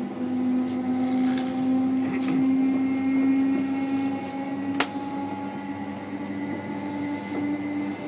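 Steady hum and drone of an electric train carriage in motion, with a few faint clicks and one sharp click about five seconds in.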